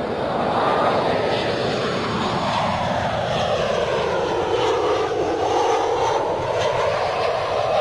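Jet engines of a Boeing 737-800 airliner, CFM56 turbofans, running at approach power as it flies past on its way in to land: a steady loud roar with a swirling tone that sweeps down and back up.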